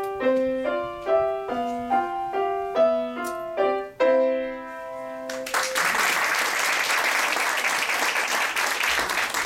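A grand piano played at an even pace, single notes over a repeating accompaniment, closing on a held final chord about four seconds in. Audience applause breaks out a little after five seconds in and continues.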